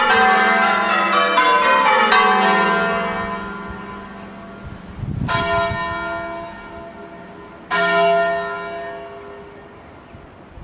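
Church tower bells, the eight 1880 John Taylor bells, ringing: a quick run of overlapping strikes in the first two seconds that then rings out and fades, followed by two more single strikes, about five and seven and a half seconds in, each left to ring out and die away.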